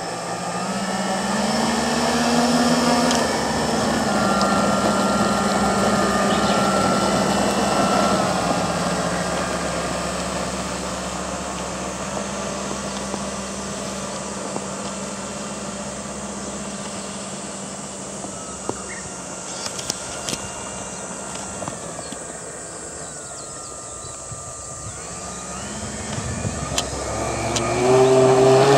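Twin motors and propellers of a radio-controlled Cessna 310 model plane taxiing at low throttle, a steady hum that rises slightly early on and eases off later. Near the end the pitch climbs sharply and loudly as the throttle goes up for the takeoff run.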